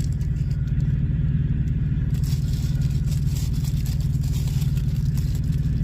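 Engine idling: a steady, even low rumble. From about two seconds in, faint rustling is heard over it.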